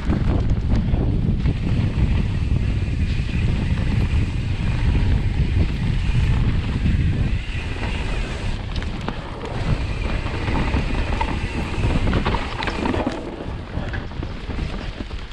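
Wind buffeting the microphone of a ride-mounted camera on a mountain bike descending a dirt singletrack. Under it, the tyres roll over dirt and dry leaves and the bike rattles over bumps.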